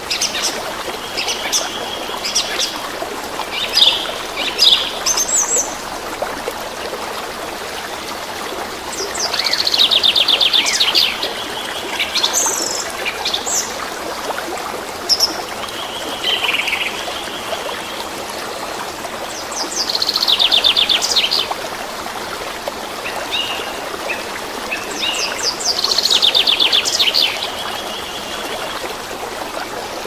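A forest brook running steadily over rocks, with songbirds singing over it: scattered short chirps and whistles, and three times a fast trilled phrase about a second and a half long.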